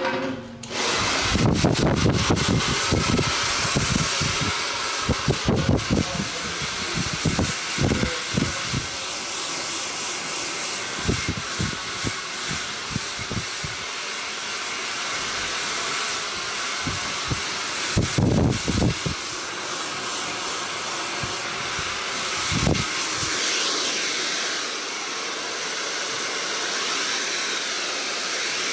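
Handheld hair dryer switched on and blowing steadily while hair is blow-dried, a continuous rushing of air with irregular low rumbling gusts. It starts about a second in.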